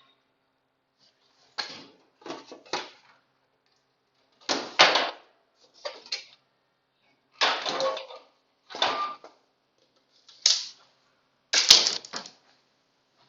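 A series of short clattering, rattling bursts, about eight in all at irregular intervals, as of hard objects being handled and knocked together.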